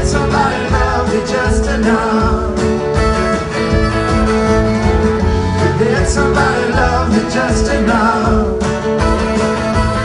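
Live band music: acoustic and electric guitars playing, with a singing voice over them.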